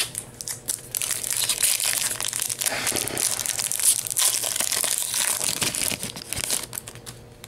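Foil Yu-Gi-Oh! Cosmo Blazer booster pack crinkling and crackling as fingers tear it open and handle the wrapper, a dense crackle from about a second in until shortly before the end.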